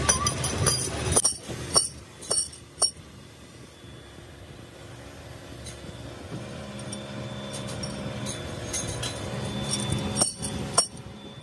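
Chrome-plated steel L-handle socket wrenches clinking against one another as they are picked out of sawdust and gathered into a bundle. A run of sharp clinks in the first three seconds and a few more near the end, with a low steady hum between.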